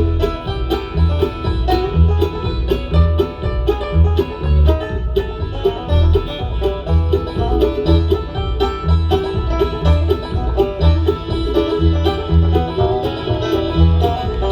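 Bluegrass band playing an instrumental break: fast banjo picking over guitar, with a steady low bass pulse about twice a second.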